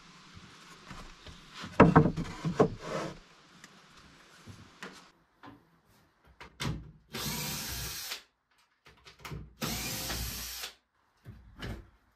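A few knocks and clatters, then a cordless drill running twice in steady bursts of about a second each.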